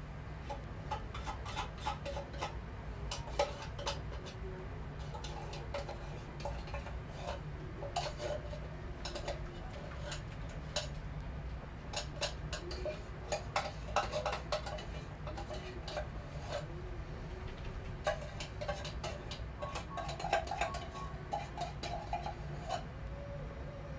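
Irregular light clicks and clinks from a cooking pot on the stove, over a steady low hum.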